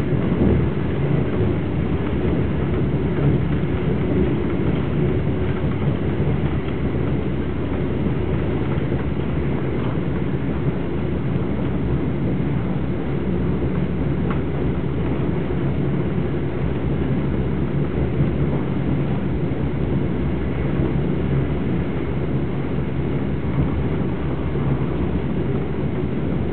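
Passenger train running at speed, heard from inside the carriage: a steady, even rumble of wheels on rail and running gear.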